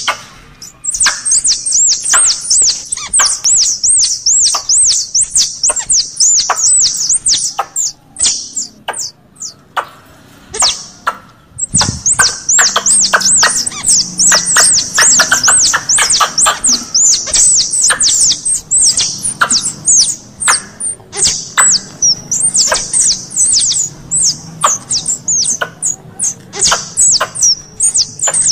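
Recorded squirrel calls: long runs of rapid, high-pitched chirping chatter, several calls a second, with a pause of about three seconds a third of the way in. It is a squirrel lure call, played to draw squirrels in close.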